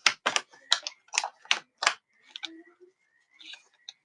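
Sharp plastic clicks and snaps from prying the bottom cover off an Asus TUF Gaming F15 laptop as its retaining clips work loose: a quick run of clicks in the first two seconds, then a few fainter ones.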